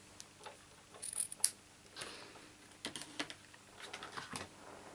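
Light scattered taps and rustles of a length of ribbon and cardstock being handled and laid across a card panel.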